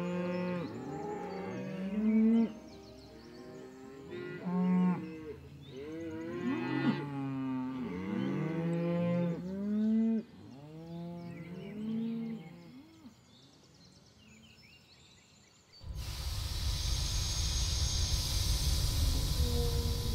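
A herd of cattle mooing, many long calls overlapping and rising and falling in pitch, the loudest about 2, 5, 7 and 10 seconds in, dying away after about 13 seconds. About 16 seconds in, a steady rumbling noise with a high hiss starts abruptly.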